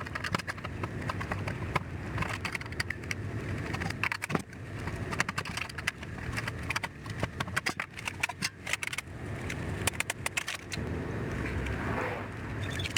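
Irregular clicks, scrapes and metallic rattles from tools and parts as an electronics unit is taken apart, over a low steady rumble.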